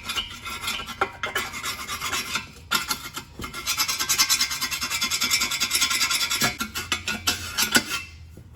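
Burnt, melted plastic being scraped off metal exhaust header tubes: rapid rasping strokes, nearly continuous through the middle, stopping briefly near the end.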